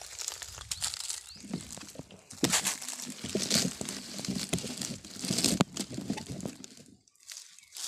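Loud close rustling and crinkling with many sharp clicks and scrapes, from a phone being picked up and moved about against the body and clothing.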